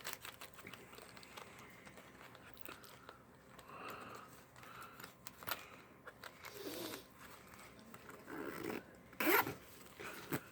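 Handling of a fabric zippered CD/DVD case: scattered small clicks and rustles, with a louder brief rasp about nine seconds in.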